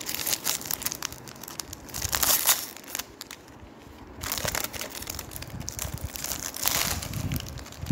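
Clear plastic wrapper crinkling in several spells as it is handled and pulled off a new leather wallet.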